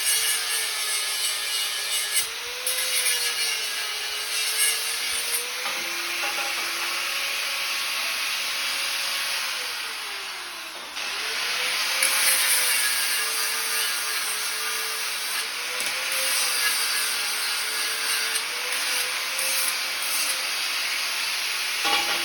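Electric power tool working steel: a motor whine that wavers with load and sags about halfway through before picking up again, over a steady abrasive hiss.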